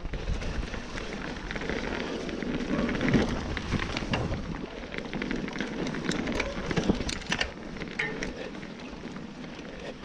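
Mountain bike riding over a dirt forest trail: tyres crunching over soil and leaf litter, with frequent short knocks and rattles from the bike over bumps.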